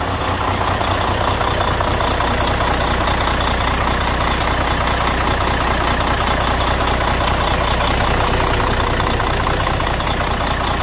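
Caterpillar C-12 inline-six diesel of a Kenworth T2000 truck idling steadily and quietly.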